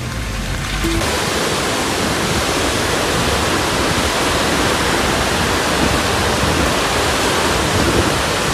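Fast-flowing river water rushing, a loud steady roar of noise across all pitches with no rhythm, cutting in abruptly about a second in.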